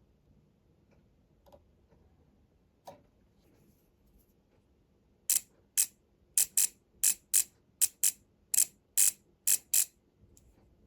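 A quick run of about a dozen short, sharp mechanical clicks, unevenly spaced, starting about five seconds in and lasting about four and a half seconds.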